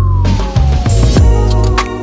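Background music with a heavy, repeated low beat and a tone that slides steadily down in pitch through the first half.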